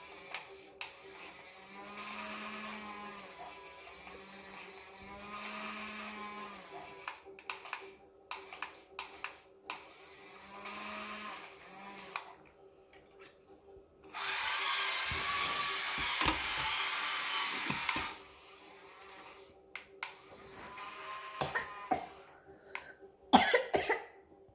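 Small electric motor of a battery-powered toy excavator whirring in several short runs, the longest and loudest lasting about four seconds, with plastic clicks and knocks in between.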